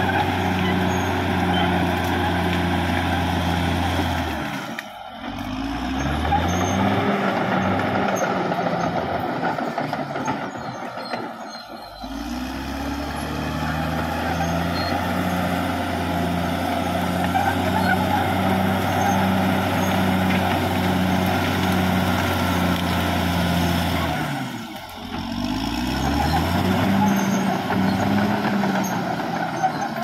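Caterpillar D6R XL crawler bulldozer's diesel engine running under load while the dozer pushes through brush. Three times the engine note drops away briefly and then climbs back up in pitch.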